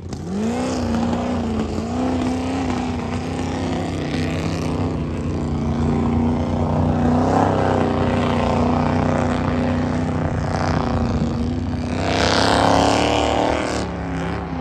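Off-road race vehicle's engine revving hard through a mud-race run. The pitch climbs sharply in the first second, then holds high with small rises and falls, and there is a louder surge near the end.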